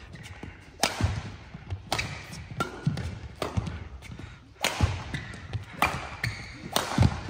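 Badminton rally: rackets striking the shuttlecock about once a second, each hit a sharp crack that rings on in a large hall, with thuds of players' feet on the court between hits.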